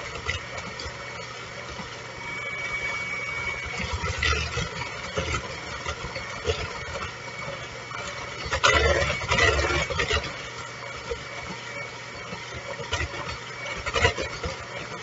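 Electric hand mixer running steadily, its beaters whirring through a thick butter, sugar and egg cookie batter. There are louder clattering moments about four, nine and fourteen seconds in.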